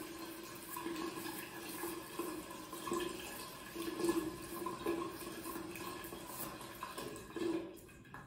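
Bathroom tap running into the sink while water is splashed and rubbed onto the face by hand; the running water stops near the end.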